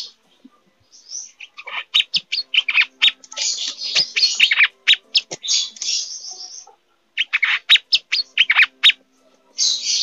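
Male kolibri manggar sunbird singing excitedly in breeding condition: fast runs of sharp, high chirps and trills in bursts, with short pauses about a second in, around seven seconds in, and just before the end.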